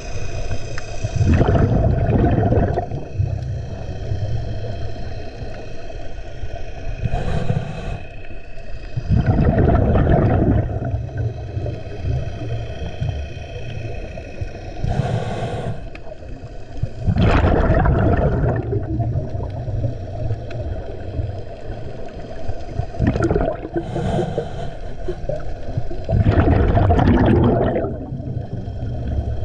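Scuba diver breathing through a regulator underwater: four bubbly exhalations about eight seconds apart, each lasting a second or two, with a short sharp inhalation hiss between them. A steady hum with a few steady tones runs underneath.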